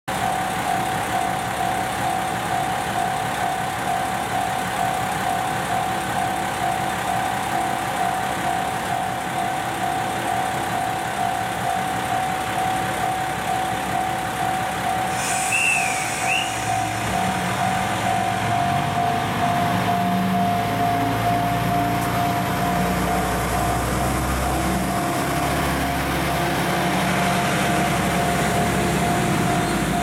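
JR West KiHa 120 diesel railcar departing: a level-crossing warning bell rings in a steady repeating tone throughout. About halfway through comes a brief hiss of air, then the railcar's diesel engine revs up and grows louder as it pulls away.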